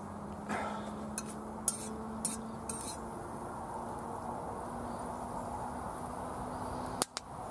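A metal spoon stirring whole spices in hot oil in a metal wok, clinking and scraping against the pan about five times in the first three seconds, over a steady frying hiss.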